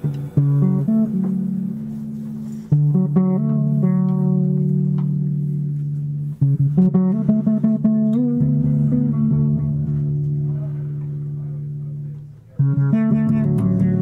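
Electric bass guitar played alone in a jazz setting: four flurries of quickly plucked notes, each ending in low chords left to ring and slowly fade.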